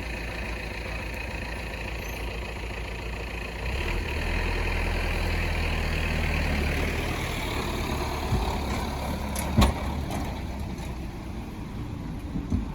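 Motor vehicle engines idling at a level crossing. A deeper, louder engine note comes in about four seconds in and eases off a few seconds later, and there is a single sharp knock near the end.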